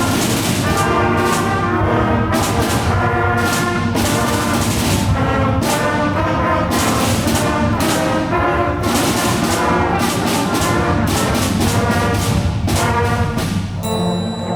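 School band playing, with brass to the fore over regular drum hits; near the end it thins to a few held notes.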